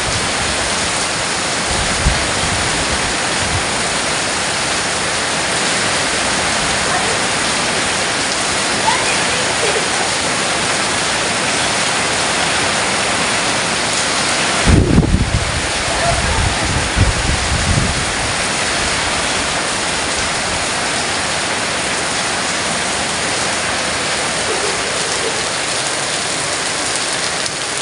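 Heavy downpour: a steady, dense hiss of rain. About halfway through there are a few seconds of low rumbling thumps.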